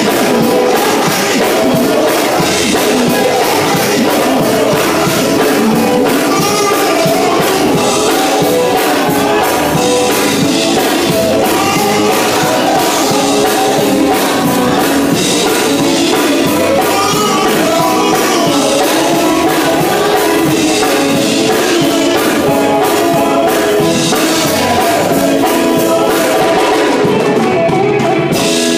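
Male gospel group singing live in harmony, backed by electric guitar and drums.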